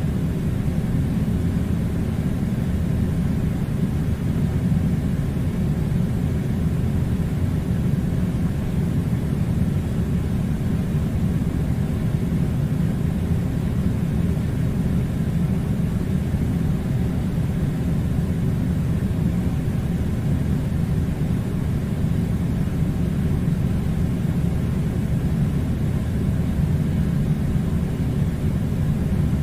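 Air conditioner running: a steady, even low rumble of blowing air with no changes.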